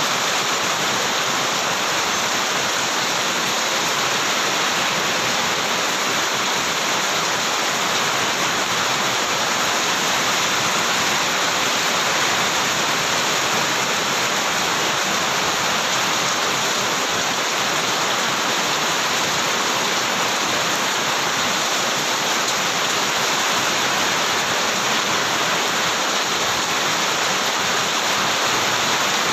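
Very heavy rain pouring down steadily, a dense, even hiss that does not let up.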